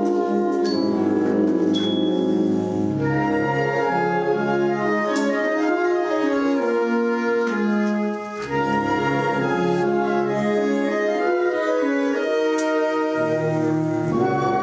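A concert band playing under a conductor, with brass prominent, holding full chords that shift from one to the next. There is a brief dip in the sound just past halfway, between phrases.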